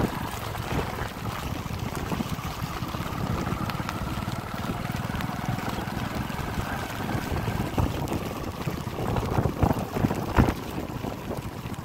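Wind buffeting the microphone over a steady rush of flowing floodwater, with a few sharp knocks near the end.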